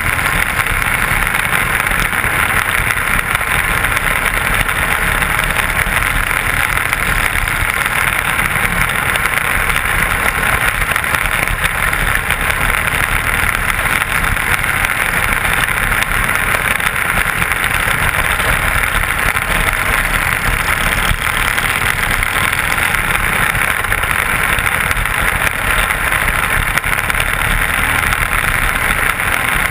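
Small open-wheel dirt-track sprint car's engine running steadily at race speed, heard from the driver's helmet camera.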